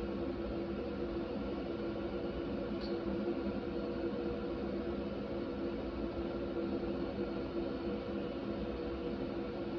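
A steady mechanical hum holding several fixed tones, with one faint light tick about three seconds in.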